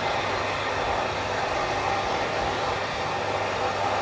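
Steady rushing background noise with a faint low hum underneath, without any shots or impacts.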